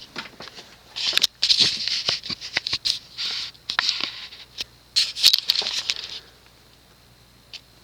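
Irregular rustling and scratching with many small clicks for about five seconds, then it dies down, over a faint steady hum.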